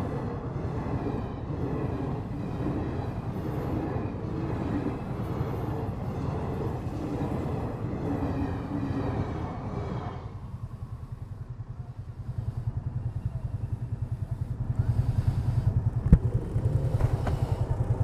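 A train passes over the level crossing for about the first ten seconds, a dense rumbling clatter that then drops away. After that a motorcycle engine idles with a steady low pulse, picking up a little about 15 s in, and there is one sharp knock near the end.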